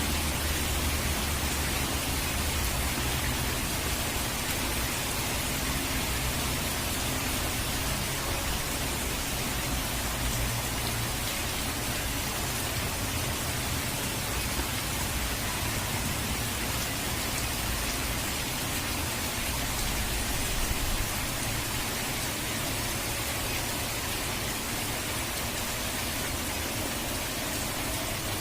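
Steady rain mixed with rushing water: an even, continuous hiss with a low rumble underneath.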